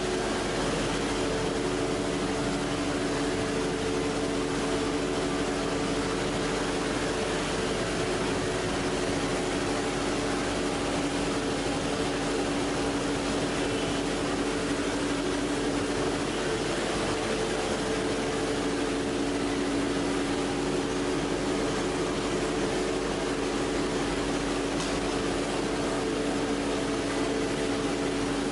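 A PP/PET strapping extrusion line running: a steady machine hum with a few constant low tones over an even hiss.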